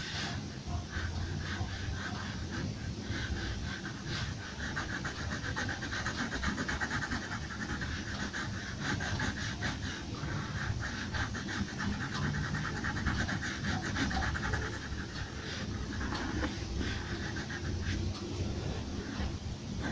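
Pencil shading on paper: quick back-and-forth scratching strokes, continuing for long stretches with a couple of brief pauses near the end.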